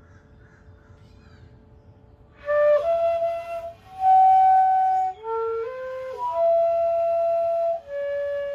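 Bansuri (bamboo flute) playing a melody of single held and stepping notes, coming in about two seconds in after a quiet pause.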